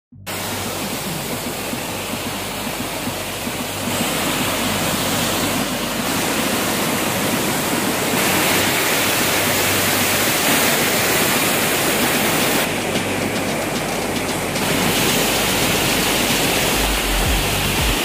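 Small waterfall splashing down over rocks: a steady rush of water that shifts abruptly in tone a few times. Background music sits underneath, its bass beat coming in near the end.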